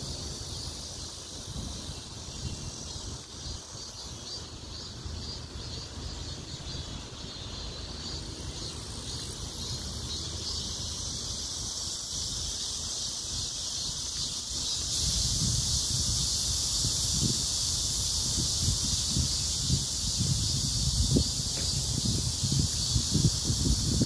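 A steady high-pitched chorus of insects with a fast pulsing, growing louder about ten seconds in. Wind buffets the microphone in low gusts over the second half.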